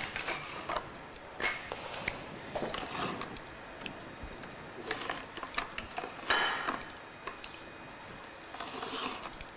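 Light rustling and scattered small clicks of hands at work on a kitchen counter, tying a rolled beef fillet with kitchen string and handling kitchen scissors. The loudest rustle comes a little past the middle.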